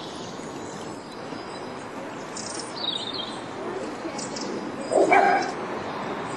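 Steady rush of floodwater, with birds chirping briefly around three seconds in. A dog barks once, loudly, about five seconds in.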